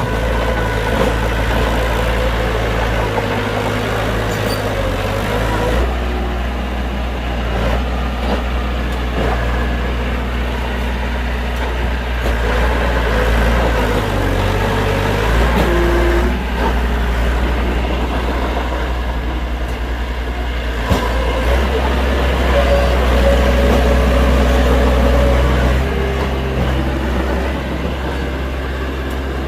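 Heavy diesel engines of earthmoving machinery running steadily, the engine note shifting now and then as the load changes, with a single sharp knock about two-thirds of the way through.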